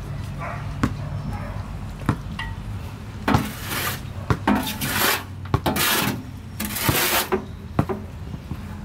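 A long-handled garden tool scraping and scooping in a wheelbarrow: a few sharp knocks, then about four or five rasping scrapes in quick succession from about three seconds in.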